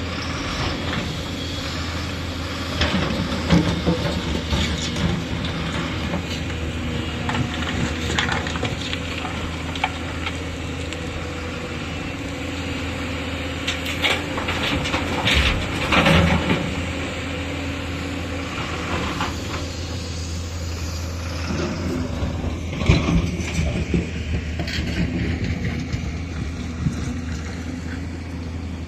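JCB excavator's diesel engine running steadily under load, with repeated bursts of clattering and rattling as material is dumped into a Mahindra dumper's steel body, the loudest about three seconds in, around the middle and near twenty-three seconds.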